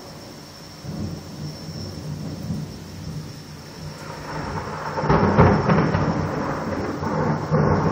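Thunder rumbling, building over a few seconds into a loud rolling peal about five seconds in that goes on rumbling.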